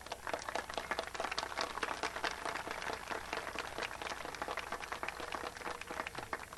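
Crowd applauding, many hands clapping in a dense patter that swells in the first second and thins out near the end.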